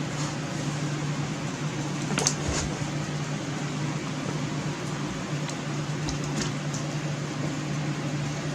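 Steady low hum like a fan or air conditioner running in a small room, with a few light clicks about two, five and six and a half seconds in.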